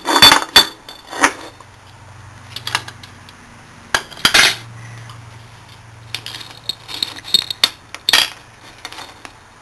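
Metal parts of a dismantled car air-conditioning compressor clinking and clanking as they are handled and set down on a workbench: a cluster of loud knocks at the start, another about four seconds in, lighter clinks, and a last knock about eight seconds in. A faint low hum runs underneath.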